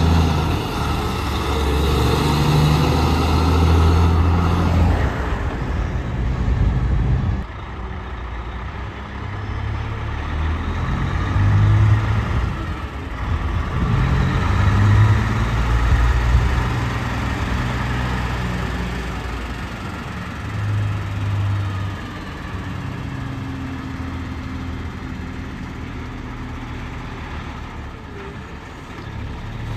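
Road traffic with heavy trucks passing one after another, their engines swelling and fading as each goes by; the loudest pass is in the first few seconds.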